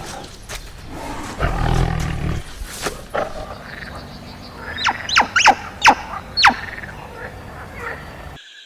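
Wild animal calls: a loud, low, rough roar-like call lasting about a second, then a run of about six short, high calls that each fall steeply in pitch.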